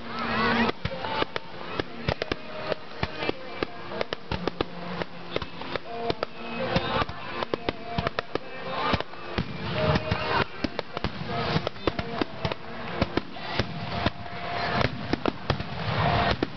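Aerial firework shells launched and bursting in a rapid barrage, many sharp bangs in quick succession with no pause.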